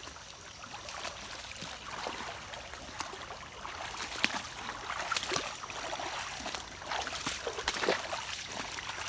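Creek water trickling and gurgling, with irregular small splashes and ticks.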